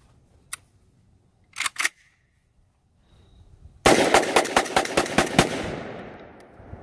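Molot VEPR-12 semi-automatic 12-gauge shotgun with a JMac Customs RRD-4C muzzle brake: a few metallic clicks as it is readied, then, a little under four seconds in, a fast string of shots lasting about a second and a half, whose echo dies away over the next second.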